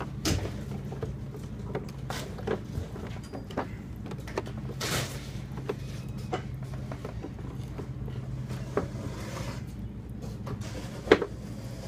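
Towel rubbing and scattered plastic clicks and knocks as the machines are wiped dry by hand, over a steady low hum. One sharper knock comes near the end.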